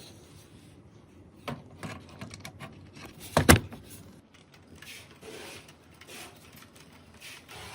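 Clicks and handling noises of PC parts being fitted during assembly, with one louder knock about three and a half seconds in.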